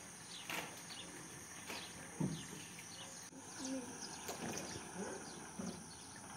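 Faint ambience of a steady high-pitched insect drone, with scattered short bird chirps and a few soft low sounds.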